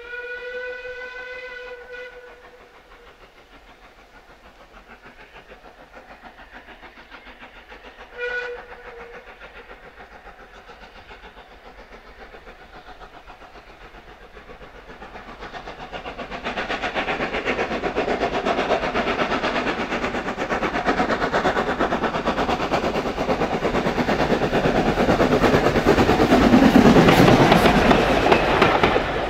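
Metropolitan Railway E Class No. 1, a 0-4-4 steam tank locomotive, sounds its steam whistle in one blast of about two seconds, then gives a short toot about eight seconds in. The train then approaches and rolls past, growing loud as the engine goes by near the end, with the coaches' wheels clattering over the rails.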